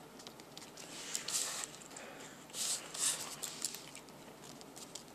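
Pencil scratching on paper in a few short writing strokes, with scattered light clicks.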